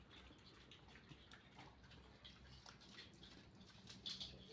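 Faint, irregular clicking of pigs eating wet cooked rice from a concrete trough.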